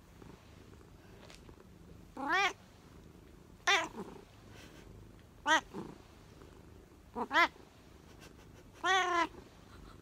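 Five short meows from a long-haired black-and-white cat, each rising and then falling in pitch, spaced about one and a half seconds apart.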